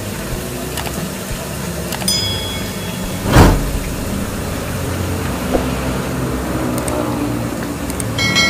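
Steady street-traffic rumble of passing road vehicles, with a short loud rush of noise about three and a half seconds in. A light ringing click comes about two seconds in, and a ringing chime near the end.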